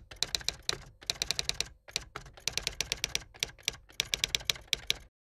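Typewriter keys striking in quick runs of sharp strokes, with short pauses between the runs, then stopping.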